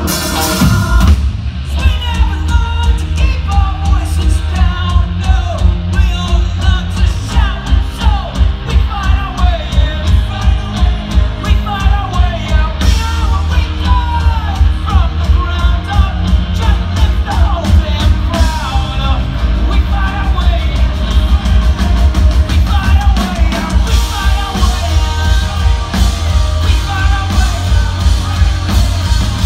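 Live rock band playing loud, with a singer's voice over a steady drum beat.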